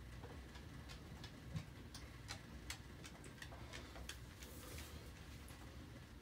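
Faint, unevenly spaced light ticks and clicks over a low steady hum, with one soft low knock about a second and a half in.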